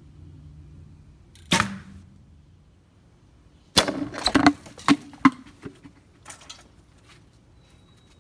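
A recurve bow shot: a single sharp snap as the arrow is loosed and strikes the pumpkin on the foam target about a second and a half in. About two seconds later comes a quick cluster of knocks and clatters, with a few fainter ones after.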